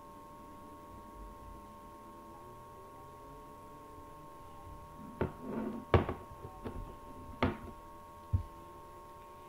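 Five knocks and thuds in about three seconds, starting a little past the middle, the loudest about six seconds in and the last a low thud, over a faint steady hum.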